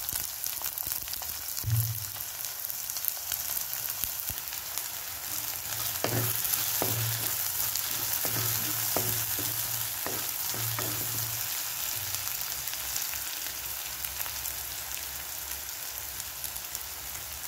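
Chopped onion sizzling as it fries in hot oil in a clay pot, with a wooden spatula stirring and knocking against the pot a series of times in the middle.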